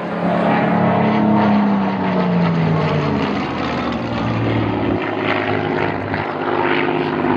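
Supermarine Spitfire's V12 piston engine droning as the fighter flies past, its pitch falling over the first few seconds and then holding steady.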